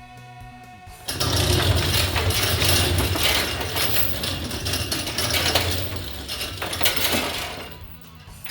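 Loud mechanical clattering, like a ratchet or gears, starting about a second in and dying away near the end, after the last of a music cue.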